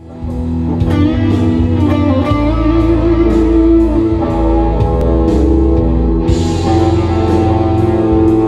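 Gibson electric guitar played through a Mesa amp, improvising sustained lead lines over a backing track with drums.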